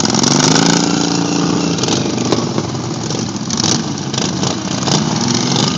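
Racing lawn mower engines running. One revs up in pitch and holds for the first couple of seconds, then the sound turns rougher and noisier.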